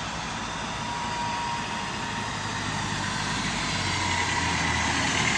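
Ford Transit van driving along the road and approaching: steady engine and tyre noise that grows louder over the last couple of seconds as it comes near.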